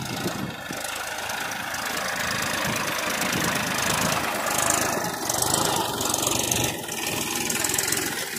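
Massey Ferguson 241 DI tractor's three-cylinder diesel engine running steadily while pulling a disc plough through dry soil.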